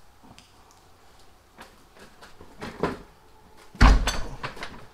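Steel floor jack being worked under a Ford 8.8 rear axle: a few light metal clicks and a scrape, then a loud heavy metal clunk about four seconds in that rattles briefly as the load shifts.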